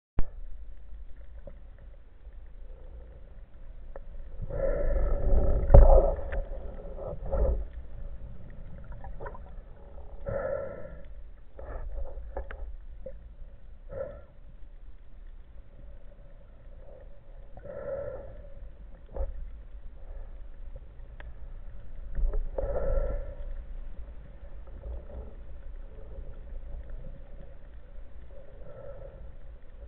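Underwater ambience picked up by a camera in its housing: a steady low rumble of water moving past as a spearfishing freediver swims with a speargun. Several short pitched swells, each about a second long, rise out of it, the loudest about five to six seconds in.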